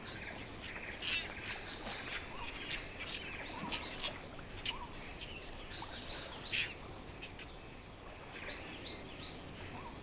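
Wild outdoor ambience: birds chirping and calling in short scattered notes, over a steady high-pitched whine.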